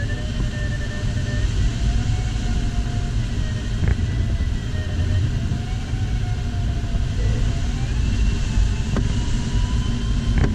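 Airflow rushing over a glider's cockpit, a steady rumble and hiss, with the electronic variometer's tone wavering up and down. In the last few seconds the tone rises in pitch as the glider flies into a thermal. A few sharp clicks sound along the way.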